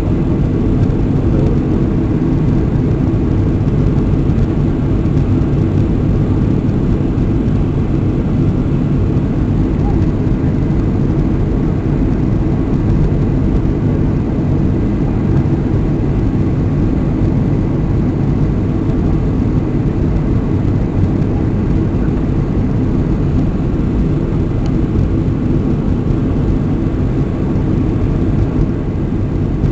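Cabin noise of a jet airliner descending on approach to land: a steady, low drone of engines and airflow that holds even throughout.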